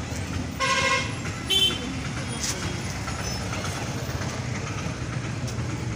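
A vehicle horn gives one short, flat toot about half a second in, followed by a brief sharper high-pitched sound, over a steady low rumble of traffic or an engine.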